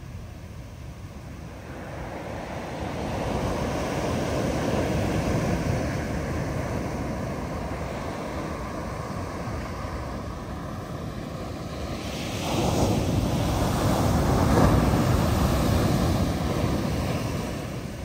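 Big ocean waves breaking on the beach: surf swells up a couple of seconds in and eases off, then a louder wave breaks suddenly about twelve seconds in and washes on for several seconds before fading.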